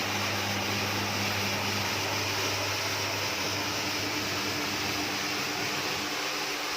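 Homemade electric carpet-brushing machine running steadily: a low motor hum under a continuous scrubbing hiss. The hum fades after about five seconds.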